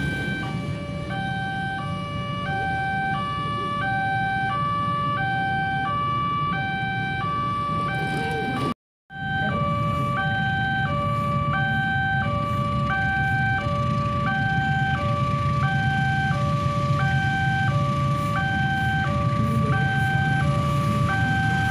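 Electronic two-tone railway level-crossing warning alarm, alternating between a higher and a lower tone about once a second, over a steady low rumble. The alarm signals that the crossing is closed for an approaching train.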